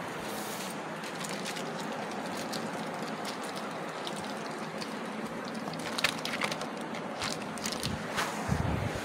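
Handling noise from the recording device being moved about: a steady hiss of rubbing against fabric, with a few sharp clicks and crackles in the last few seconds.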